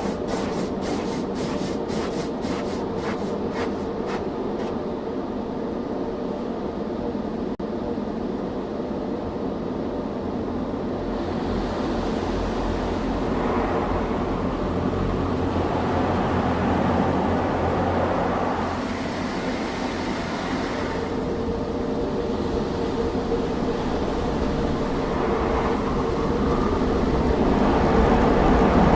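Automatic car wash working on the car, heard from inside the cabin. Rhythmic slaps, about three a second, fade out over the first few seconds, then steady rushing spray and machinery hum carry on.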